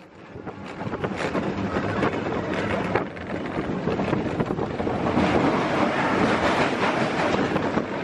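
Expedition Everest roller coaster train running along its track, heard from on board: a steady rumble of wheels on the rails with wind rushing over the microphone.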